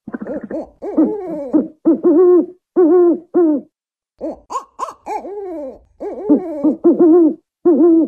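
African wood owl calling: a quick run of hoots, each note rising and falling in pitch, with a short break about halfway through.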